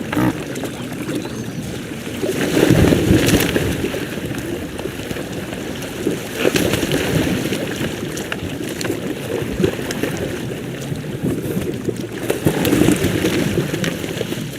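Water sloshing and splashing with wind on the microphone, swelling louder a couple of seconds in and again near the end.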